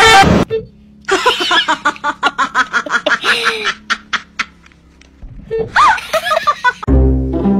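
A person laughing hard in a quick run of short bursts, after a brief loud cry at the start; a few more vocal sounds come near the end.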